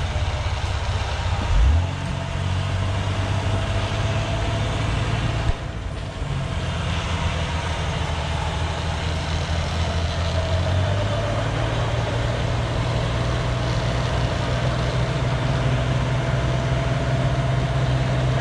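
Four-wheel-drive vehicle engine running steadily, rising briefly about a second and a half in, then settling at higher revs from about eleven seconds on.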